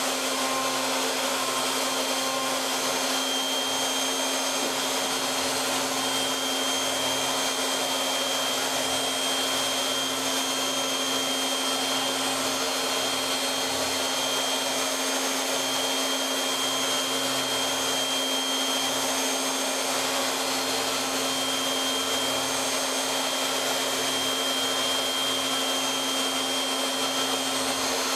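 Techno CNC Series 3024 router's spindle running with a steady whine while its end mill cuts the internal pocket of a small wooden block, on its last roughing pass.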